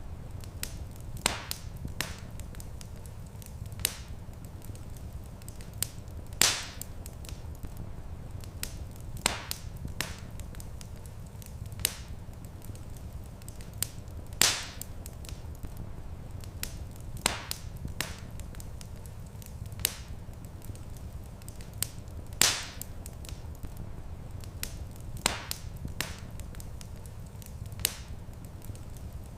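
Wood fire crackling in a stone fireplace: irregular sharp snaps and pops, a louder pop every few seconds, over a steady low rumble of the flames.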